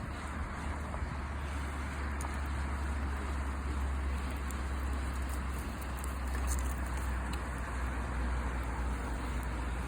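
Wood campfire with a few faint, sharp crackles over a steady low rumble.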